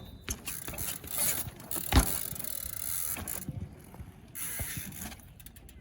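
Downhill bike being worked by hand: the rear freehub ratchet buzzes in stretches as the wheel spins, with knocks and rattles and one loud thump about two seconds in.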